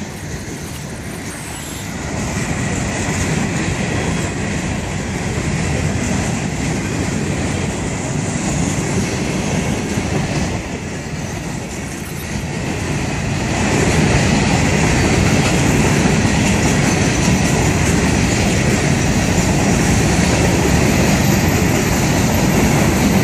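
Florida East Coast Railway freight train's open-top hopper cars rolling past on the rails: a steady rumble of wheels on track with a thin high tone from the wheels, growing louder about halfway through.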